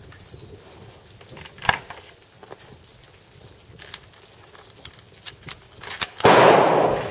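A single loud rifle shot from a 6.5x61 Super rifle near the end, its blast lingering about half a second before fading. A sharper, shorter crack comes about two seconds in.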